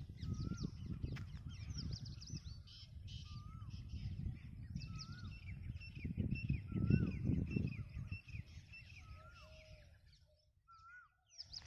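Several birds chirping, one repeating a short rising-and-falling whistle about once a second. Under them runs a low rumbling noise on the microphone, loudest about seven seconds in, which drops away near the end.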